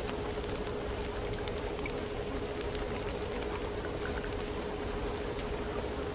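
Layered subliminal audio track: a steady water-like hiss flecked with scattered faint ticks, over one steady held tone, with no audible words.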